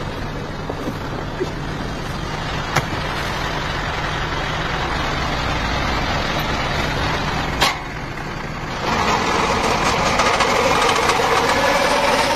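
Tractor engine running steadily as it drives a belt-driven irrigation water pump, with two sharp clicks along the way. About nine seconds in the sound gets louder and fuller as the pump picks up.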